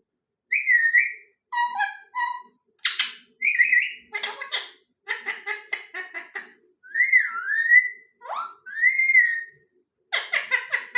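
A parrot whistling and chattering: a string of short calls with brief gaps, some as whistles that slide up and down in pitch, others as quick rattling chatter.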